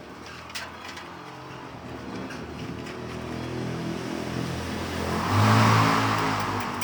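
A motor vehicle passing by: its engine and tyre noise grow louder, peak about five and a half seconds in, then fade.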